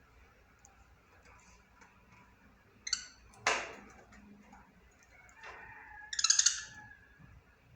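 Budgerigar chirping and chattering in short bursts: a quick run of ticks about three seconds in, a single sharp loud click right after, and a loud, rapidly pulsing buzzy chatter around six seconds.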